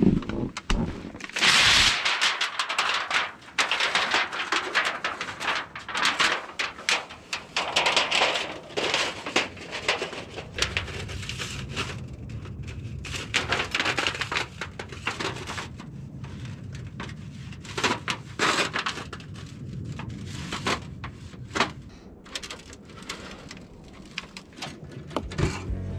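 Thin titanium sheet of a portable wood-stove chimney being unrolled and worked into a pipe by hand, giving irregular bursts of metallic crinkling, scraping and sharp clicks.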